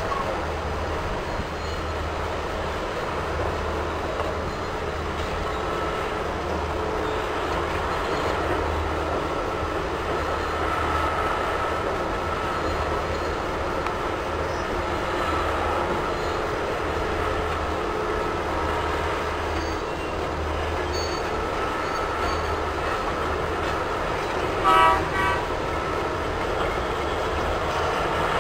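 Steady drone of a Bucyrus-Erie 2570W electric walking dragline's machinery as it swings its boom, with a low rumble underneath. About three-quarters of the way through there is a brief loud toot, followed by a shorter one.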